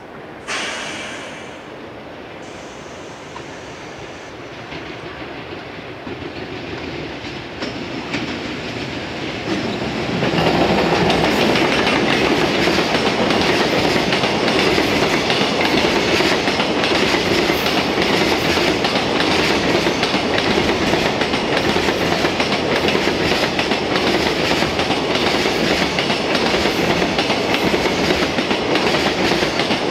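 Container freight train hauled by a JR Freight EF210 electric locomotive, approaching and then passing close by. The rumble grows over the first ten seconds, then turns into a steady loud clatter of the container wagons' wheels running over the rails.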